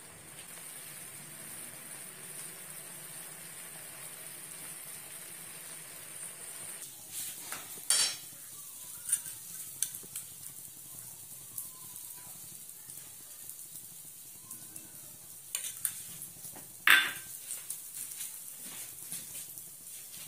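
Egg and bread frying in butter in a pan, a steady sizzle. From about seven seconds in, a utensil scrapes and knocks against the pan as the egg is folded over the bread, with two sharper knocks standing out.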